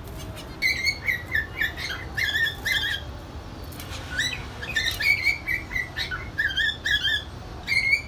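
Zebra finches calling: short, high chirping calls given in quick runs, one run in the first few seconds and a longer one after a short pause.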